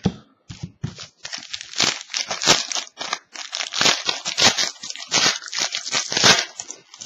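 Trading card pack wrapper being torn open and crinkled by hand, a run of irregular crackles and rustles.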